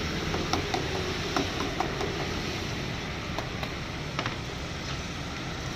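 Steady street traffic noise, with a few short, sharp clicks of a small knife cutting and trimming a peeled pineapple, bunched in the first two seconds and once more a little after four seconds.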